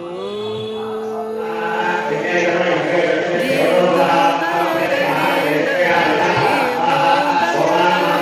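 Hindu devotional chanting by a group of voices with music behind it: a single held note opens it, and a fuller chorus joins about two seconds in.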